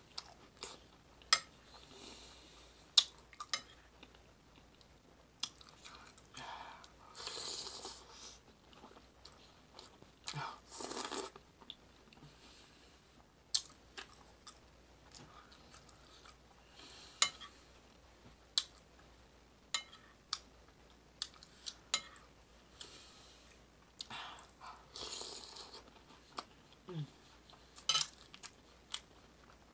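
Close-up eating sounds: chewing and crunching through chili with a crisp topping, with sharp clicks scattered throughout and a few longer noisy stretches, heaviest about a third of the way in and again near the end.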